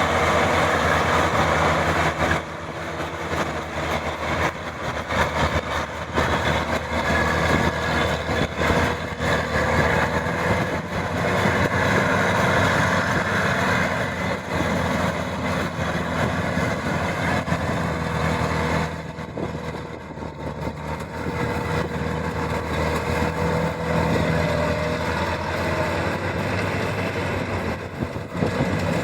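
Maxxi 85 combine harvester running steadily, its engine and machinery making a continuous mechanical sound with a faint whine through most of it. The sound drops a little about two seconds in and again about two-thirds of the way through.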